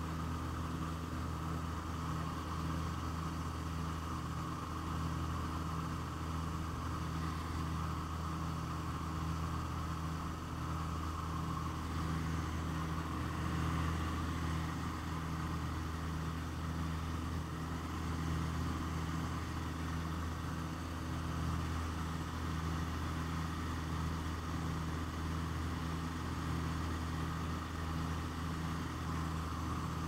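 Twin piston engines and propellers of an L-26B (Aero Commander) droning steadily in cruise flight, heard from inside the cockpit, with a slow, regular pulsing running through the drone.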